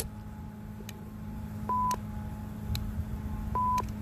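Two short electronic beeps, each about a quarter second long and about two seconds apart, over a steady low hum.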